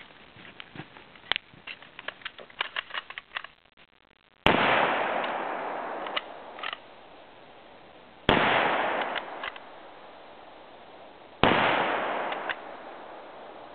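Mauser K98 bolt-action rifle fired three times, the shots about four and then three seconds apart, each report echoing away for a couple of seconds through the pine forest. Metallic clicks and rattles of rifle handling come before the first shot, with short clicks between the shots as the bolt is worked.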